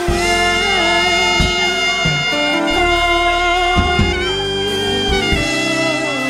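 Live church worship band music: long sustained chords and held notes over electric bass guitar.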